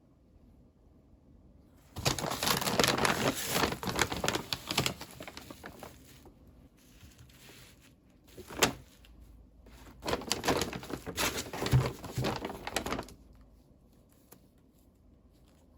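Toy packaging being handled and opened: rustling and crinkling in two spells of about three seconds, with a single sharp click between them.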